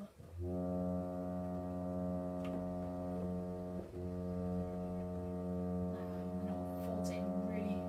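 Reed organ holding one low note, its bass stop drawn along with the other stops, a steady full tone that starts about half a second in and briefly dips about four seconds in.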